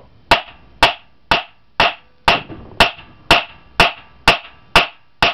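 Hammer blows on a nut threaded onto a chainsaw's crankshaft end: eleven sharp metal strikes, about two a second, shocking the flywheel loose from its tapered seat on the crank.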